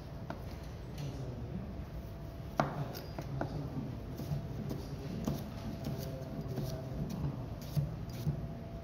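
Kitchen knife slicing a cucumber into rounds on a plastic cutting board, the blade knocking on the board at an irregular, unhurried pace, with the sharpest knock about two and a half seconds in.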